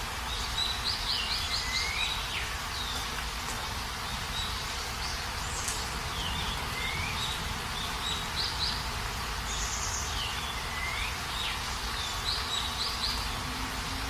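Steady rain falling, with a small songbird singing a short phrase of trills and downward slurs every few seconds.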